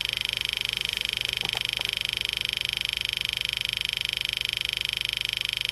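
Steady high-pitched electronic buzz, even and fast-pulsing, with a couple of faint knocks about one and a half seconds in.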